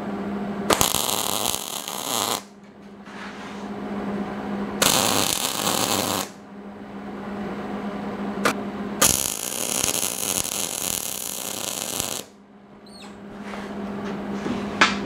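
Wire-feed welder's arc crackling and hissing on steel bar: three welds of one to three seconds each, with a brief tack between the second and third. A steady low hum runs underneath.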